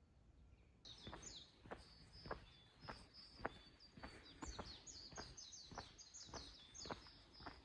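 Small birds chirping in quick, high, downward-sweeping notes, starting about a second in. Under them are footsteps at a steady walking pace, about two steps a second.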